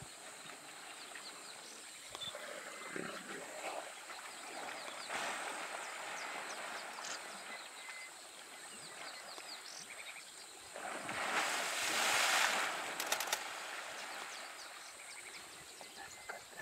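Water sloshing and splashing as two African elephant bulls wrestle in a waterhole. A louder rush of splashing lasts about two seconds, roughly eleven seconds in. Small birds chirp in the background.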